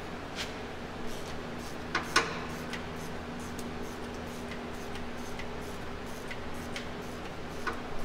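Ratchet on a long extension clicking in single ticks, unevenly spaced about a second apart, with a sharper pair of clicks about two seconds in.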